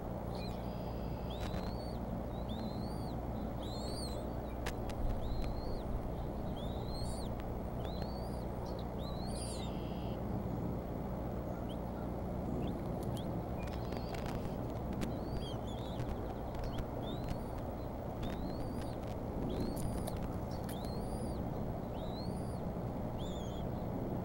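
Bald eaglet chicks peeping while being fed: thin, high chirps repeating about once a second, pausing for a few seconds about halfway through. Under them run a steady low hum and a few sharp clicks.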